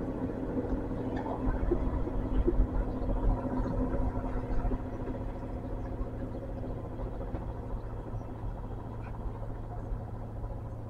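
Diesel engines of a Great Western Railway diesel multiple unit running steadily as the train pulls away, a low drone with a few steady tones that grows fainter through the second half.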